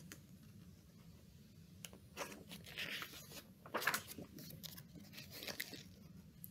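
Faint rustling of a picture book's paper pages being handled and turned: a few short rustles starting about two seconds in.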